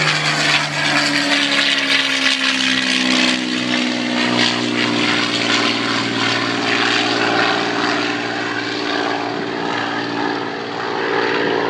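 P-51 Mustang's liquid-cooled V-12 engine and propeller passing overhead on departure. Its pitch drops about a second in as it goes by, then it drones on steadily as it climbs away.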